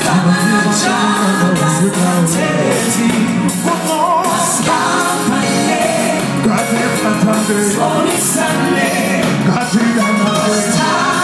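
Live performance: a group of men singing together at microphones, backed by a band with drums and guitar.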